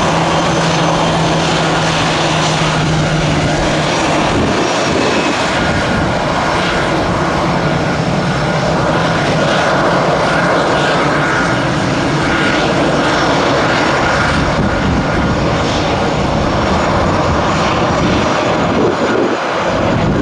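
Airbus A319 jet engines running steadily on the ground, a loud, even rush with a faint whine. A low hum underneath stops about four seconds in.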